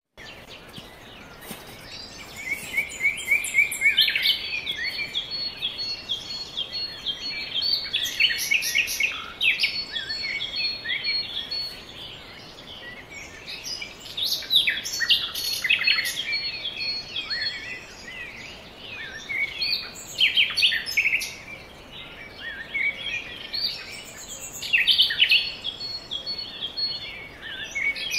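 Several small songbirds chirping and twittering, with quick runs of high notes that come and go in bursts every few seconds.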